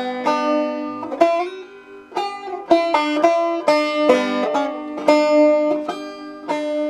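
Banjo being picked: a quick run of bright plucked notes, with a few notes slid up in pitch and one note ringing steadily underneath.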